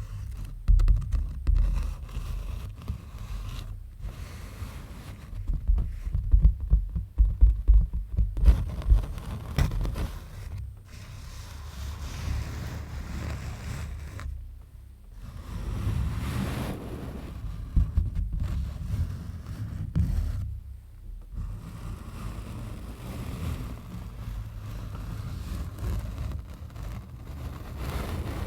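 Close-miked scraping and rustling on an object, with uneven low thumps from handling, and a cluster of louder thumps about six to nine seconds in.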